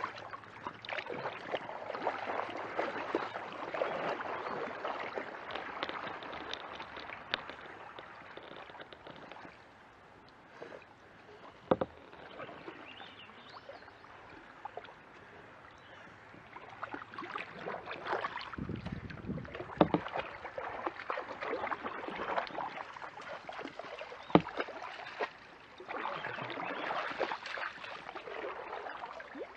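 Kayak paddle strokes splashing and dripping in creek water, with a quieter stretch in the middle and a few sharp knocks.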